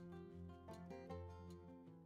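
Quiet instrumental background music of held notes with a few plucked notes, getting quieter near the end.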